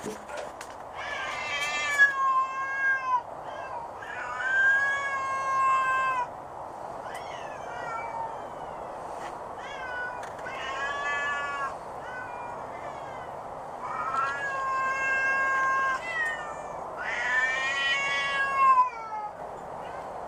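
A domestic cat yowling in a series of long, drawn-out meows with a wavering, yodel-like pitch. There are about half a dozen calls, each a second or two long, with shorter ones between, over a steady background hum.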